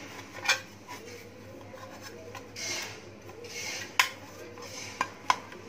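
Fingers rubbing ghee around the inside of an aluminium cake tin to grease it, soft swishing strokes with a few sharp clicks and taps as the tin is handled.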